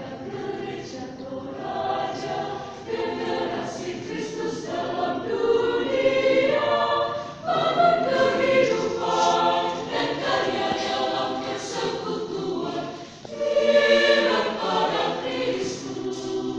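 Choir singing in long, sustained phrases that swell and fade, with short breaks for breath about halfway through and again near the end, the loudest swell just after the second break.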